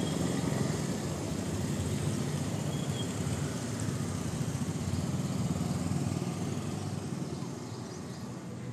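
Steady low rumble of a running motor, unbroken and easing a little near the end.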